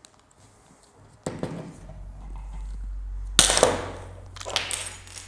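Riveting tool setting a countersunk blind rivet: a low rumble builds as the tool pulls, then a sharp crack a little past the middle as the rivet sets and the mandrel snaps off, followed by a smaller rattle.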